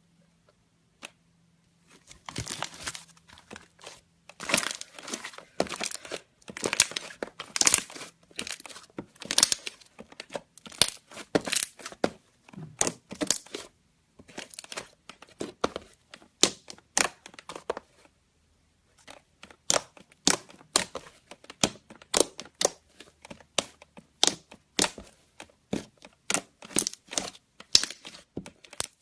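Slime being squeezed, poked and stretched by hand, giving dense runs of crackling pops and clicks, with a short break about two-thirds of the way through.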